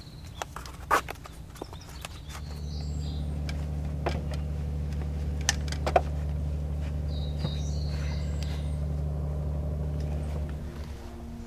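A steady low engine hum that comes in about two seconds in, holds, and fades out near the end, with a few sharp clicks early on and a couple of short bird chirps.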